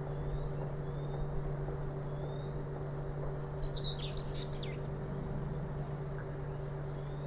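Steady drone of a woodworking machine running at the neighbouring production site, a constant low hum. A small bird chirps a few times about halfway through.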